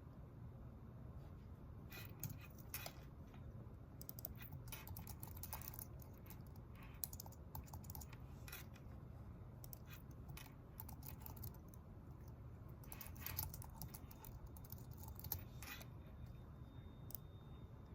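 Typing on a computer keyboard: faint, irregular runs of key clicks with short pauses between them, over a steady low room hum.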